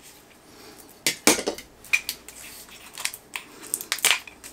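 A Funko Soda can being handled and opened by hand: a few sharp, irregular clicks and crinkles, with a small cluster near the end.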